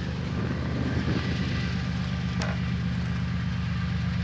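BNSF diesel locomotive running as it leads a coal train toward the listener: a steady low engine drone.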